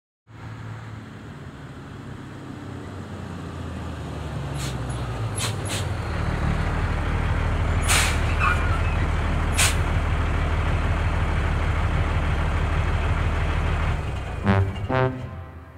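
Truck engine sound effect growing louder as it approaches, then running steadily, with a few brief sharp noises over it. The engine stops near the end, where a few brass-like musical notes begin.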